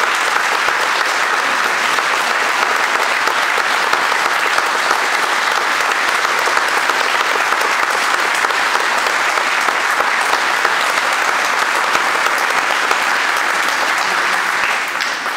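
Audience applauding, a steady dense clapping that starts to die away near the end.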